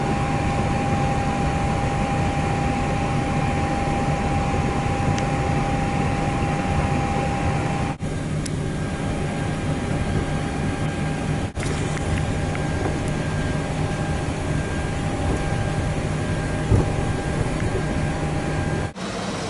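Steady cockpit noise of a Boeing 737-800 on the ground, with its engines at idle: a constant low hum under an airflow hiss, with a thin high whine held steady throughout. The noise drops out for an instant three times.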